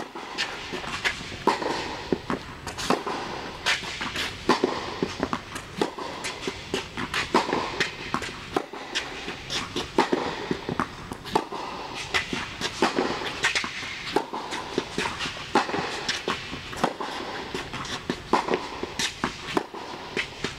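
Tennis rally in an indoor hall: a steady series of sharp pops from balls struck by rackets and bouncing on the court, one or two a second, with footsteps on the court between them.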